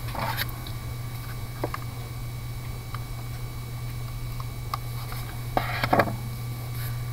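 A pen-style correction tape dispenser drawn across paper gives a short dry rasp about five and a half seconds in, with a few faint ticks earlier, over a steady low hum.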